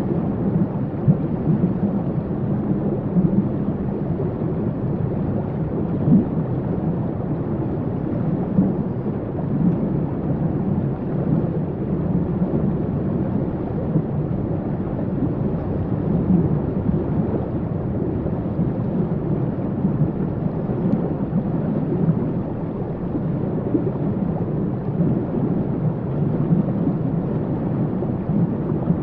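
Waterfall: a steady, deep rush of falling water that does not let up.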